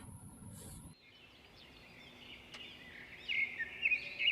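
Birds chirping: a run of short, quick calls sliding up and down in pitch, starting about three seconds in, over faint background noise.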